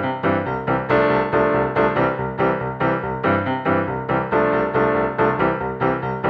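Background music: a piano-like keyboard playing a steady run of notes with a regular beat.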